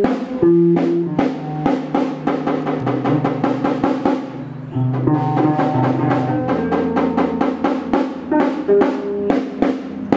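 Drum kit playing a fast, steady beat with kick and snare, together with a guitar playing notes over it, as in a live jam.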